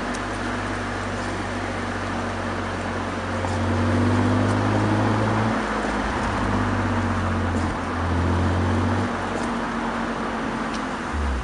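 BMW's exhaust heard at the dual tailpipes while driving, a steady engine note over road and wind noise. The note swells about three to five seconds in, then breaks off and changes pitch several times in the second half.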